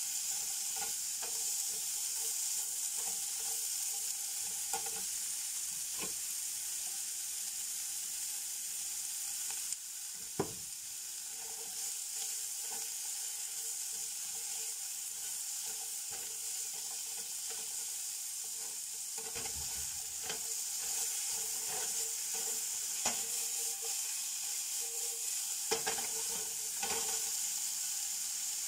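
Sliced bell peppers, carrot and onion sizzling steadily in oil in a honeycomb-textured stainless steel fry pan, stirred with a spatula that scrapes and taps against the pan now and then.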